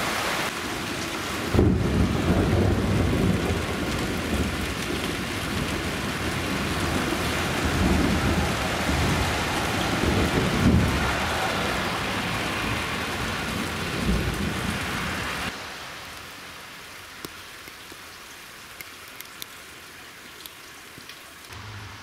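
Rain hissing steadily under a long rolling rumble of thunder that starts about a second and a half in and swells several times. The rumble dies away about fifteen seconds in, leaving quieter rain with scattered drips.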